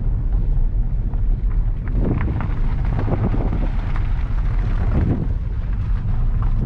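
Car driving over a rough old runway track, heard from inside the cabin: a steady, heavy low rumble of tyres and body.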